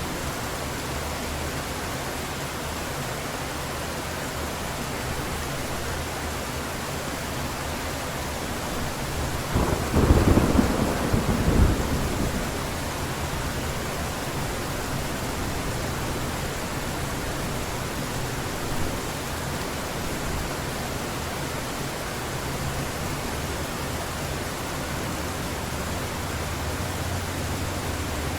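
Steady heavy rain, with one loud thunderclap about ten seconds in that rumbles for around three seconds before the rain carries on alone.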